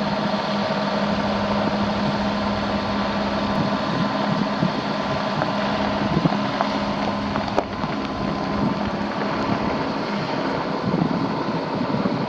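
Chevrolet Silverado pickup's 5.3-litre V8 running steadily at idle, with wind noise on the microphone.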